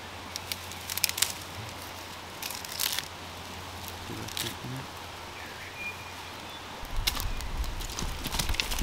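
Wood campfire crackling with scattered sharp pops over a quiet hiss. A low rumble comes in about seven seconds in.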